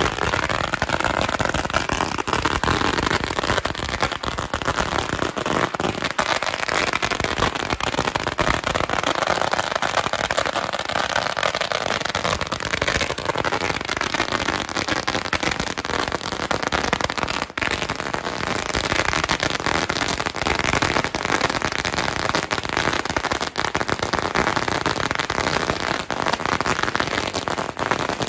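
A long string of Tết firecrackers going off in a dense, continuous crackle of rapid bangs that never lets up.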